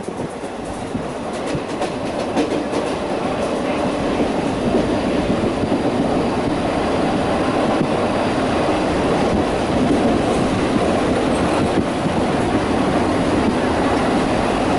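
Passenger train running at speed, heard from inside a carriage at an open window: a steady rumble and clatter of the wheels on the rails, growing louder over the first few seconds.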